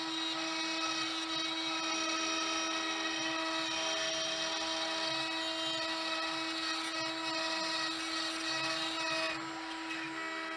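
CNC wood router spindle running with a steady whine while its 1/8-inch bit cuts the inside profiles of the pattern in pallet wood. A lower hum underneath shifts in pitch as the machine moves.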